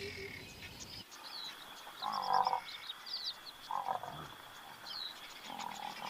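Wild animal ambience as music fades out at the start: three short animal calls, the loudest about two seconds in, over quick high chirps and a steady high-pitched drone.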